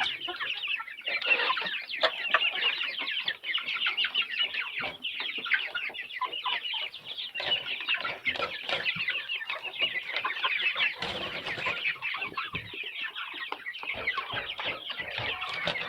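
A flock of chickens clucking without a break, many birds calling over one another.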